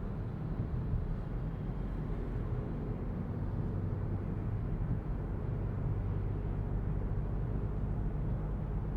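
Steady low rumble of a 2023 Citroen C5 Aircross under way: road and tyre noise with the drone of its 1.5-litre diesel engine.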